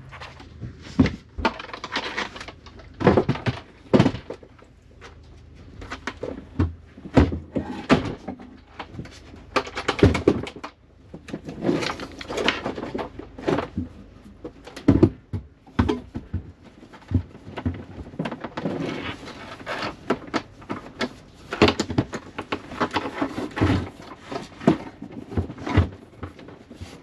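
A long run of irregular knocks, thuds and scrapes as 200 Ah lithium iron phosphate batteries are set down, pushed and shifted into place in a plywood battery compartment.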